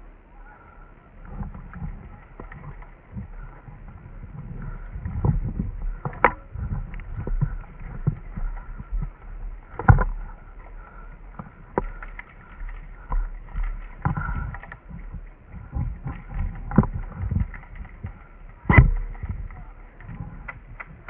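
Muffled thuds and rustling of a player moving with a body-worn microphone, with several sharp cracks. The loudest cracks come about ten seconds in and again near the end.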